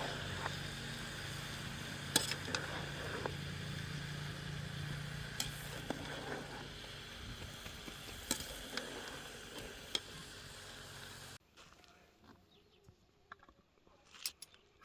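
Food sizzling as it fries in a pan, with a few sharp clicks of a utensil against the pan. The sizzle cuts off abruptly about eleven seconds in, leaving only faint clicks.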